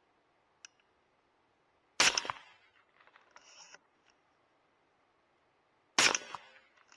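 Two shots from a suppressed .308 Win bolt-action rifle, about four seconds apart, each cracking sharply and dying away within half a second. Each shot is followed by quieter clicks and rattles of the bolt being worked.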